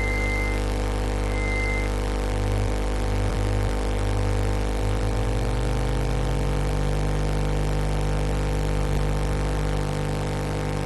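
Buzzy electronic drone of the XYscope audio signal, the oscillator waveform that draws the word "hello" on an oscilloscope in XY mode, made of many steady tones together. A low tone in it pulses, then glides slightly upward about five to seven seconds in and holds.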